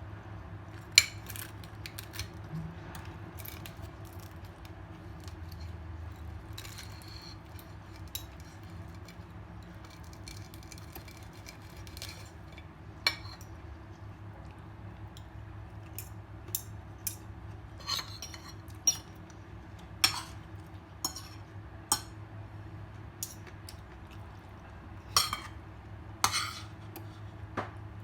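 Dishes and cutlery clinking sharply against a plate during a meal, about a dozen separate clinks scattered through and bunched more in the second half, over a steady low hum.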